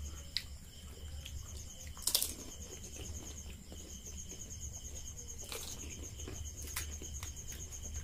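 Crisp fried puri shells cracking as they are poked open with the fingers and bitten: a few short sharp crunches, the loudest cluster about two seconds in. Underneath runs a steady, high, finely pulsing trill and a low hum.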